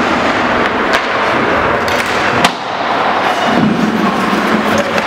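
Ice hockey play on an indoor rink: skates scraping and hissing on the ice with stick clacks, and one sharp knock of stick, puck or boards about two and a half seconds in.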